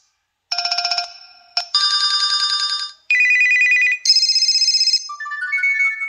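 Preloaded HTC Wildfire S ringtones previewed one after another through the phone's speaker: about four short electronic trilling ring tones, each cut off after about a second as the next one is selected, then a run of short whistle-like notes stepping upward near the end.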